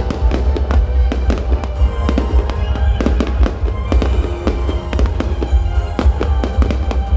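Fireworks bursting in rapid succession, several bangs a second, over loud show music with a heavy bass.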